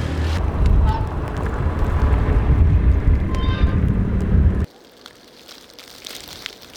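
A vehicle engine running close by, heavy and low, with street noise. It cuts off abruptly about two-thirds of the way in, leaving faint outdoor ambience.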